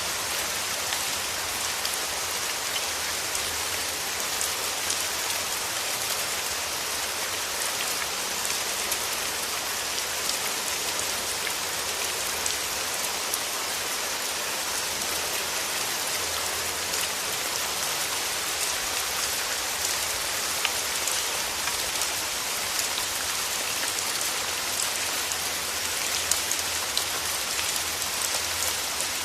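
Steady rain falling, an even hiss with individual drops ticking through it.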